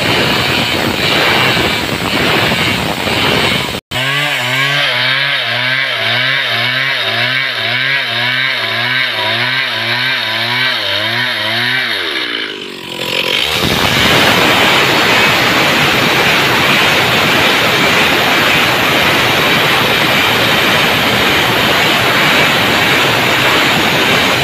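Stihl chainsaw ripping lengthwise along a marked line in a squared timber log, running at full throttle under load. About four seconds in there is a sudden break. The saw then sounds lower, with a wobbling engine note, for about eight seconds, before full-throttle cutting resumes.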